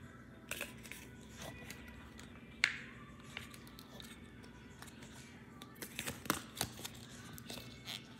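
Green slime being squeezed in the hand and pressed into a small plastic tub: a run of short sticky clicks and pops, the sharpest about two and a half seconds in, and a quick cluster of them around six seconds.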